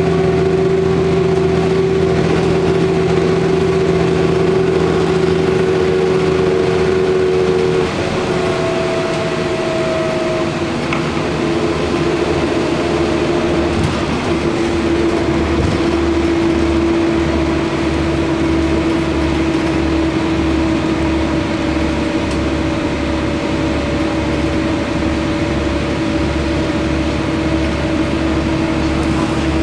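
Steady running noise heard from inside a moving road vehicle: a drive whine over road and tyre noise. The whine drops in pitch about eight seconds in, as at a gear change, and in the second half a low rumble pulses evenly.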